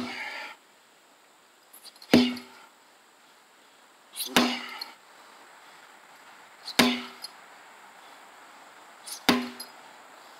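Sledgehammer blows, four heavy strikes about every two and a half seconds, each impact followed by a brief low ring.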